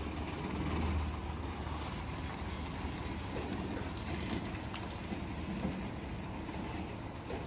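A vehicle running steadily: an even rumble with a low hum underneath and a few faint clicks.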